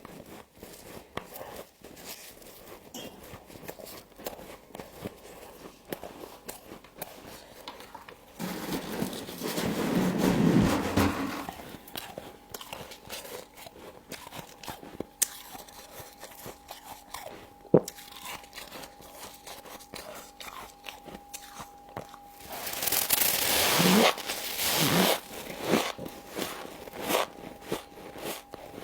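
Frost being bitten and chewed close to the microphone: many small crisp crunches, with two longer, louder stretches of dense crunching about a third of the way in and again near the end.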